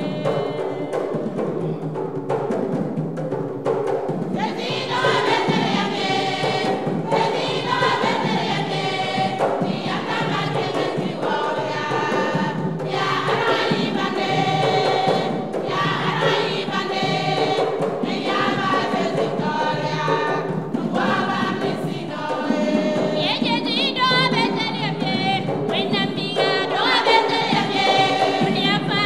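Women's choir singing a Christian song together, with voices on microphones carrying the melody over the group.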